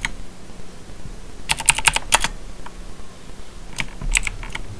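Computer keyboard keys being pressed in two quick bursts of clicks, the first about a second and a half in and the second near the end.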